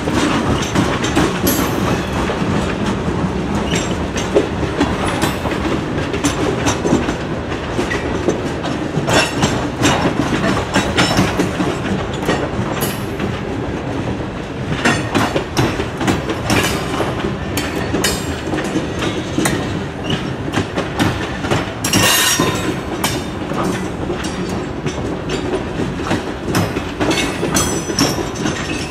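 Loaded freight train cars rolling steadily past at close range: a continuous rumble of steel wheels on rail, with repeated sharp clicks and clatter as the wheels pass over the rail joints.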